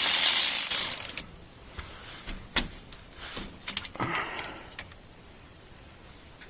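A power tool runs and stops about a second in. A few sharp clicks and knocks of metal parts being handled follow, with a short scrape about four seconds in.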